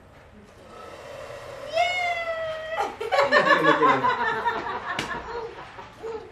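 A toddler's drawn-out high squeal that falls slightly in pitch, followed by a couple of seconds of adults laughing. A single sharp click sounds near the end.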